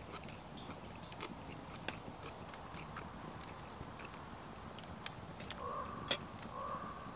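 Close-miked chewing of a mouthful of beef chow mein, with scattered sharp mouth clicks and a louder click about six seconds in as the fork goes back to the plate. A crow caws twice near the end.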